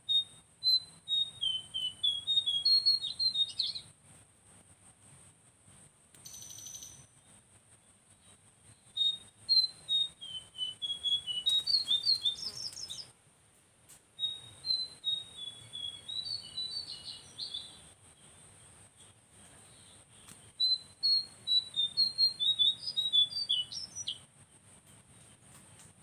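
Brown cincoang (cincoang coklat) bird song: a rapid run of short chirping whistled notes lasting about four seconds, repeated four times with pauses between. A steady high-pitched whine runs underneath.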